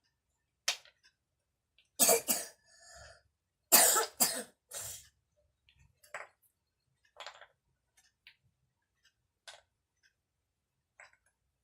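A young child with a cold coughing: two loud fits of two or three coughs each, about two seconds in and about four seconds in, then a few softer short sounds.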